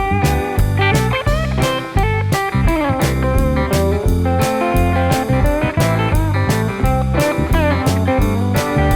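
Background music: a blues guitar tune over a steady beat, with bending, sliding guitar notes.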